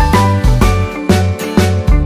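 Upbeat background music with a steady beat and a bright, tinkling melody.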